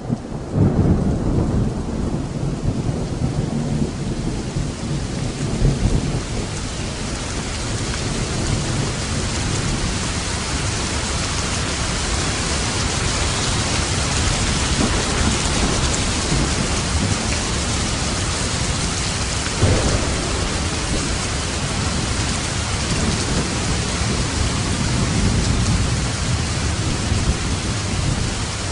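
Steady heavy rainfall hissing, with rolling thunder rumbling low through the first several seconds and a brief sharper thunder clap about two-thirds of the way through.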